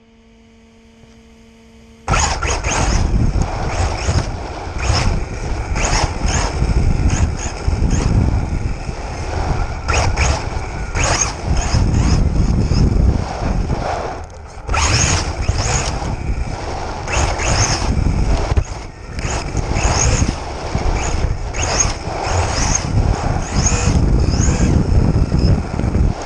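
A 1:8 scale RC buggy being driven, heard through an onboard action camera. About two seconds in, a loud, rough mix of ground and wind noise starts, with a high motor whine that rises and falls as the throttle comes on and off.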